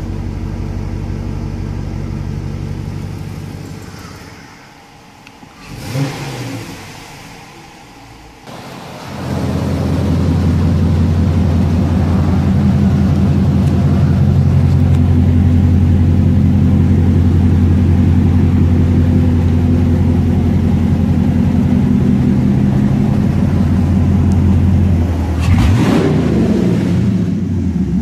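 Dodge Challenger R/T's 5.7-litre HEMI V8 with exhaust cutouts, idling, then dying away after a few seconds. It starts up again about eight seconds in and settles into a loud, deep idle, with a short rev near the end.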